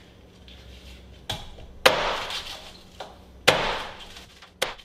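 A heavy cleaver chopping through a bundle of lemongrass stalks on a wooden cutting board: a light knock, then two hard chops about a second and a half apart, each trailing off over about a second, and a short knock near the end.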